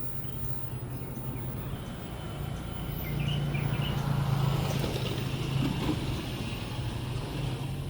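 Road vehicle engines running at a railway level crossing just after its alarm has stopped, a steady low hum that swells to its loudest about four seconds in as a vehicle passes, with a few faint bird chirps.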